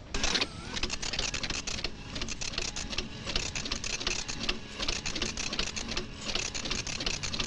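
Computer impact printer printing a listing onto continuous fanfold paper: a fast, uneven chatter of strikes that starts just after the beginning and keeps going, with the paper feeding line by line.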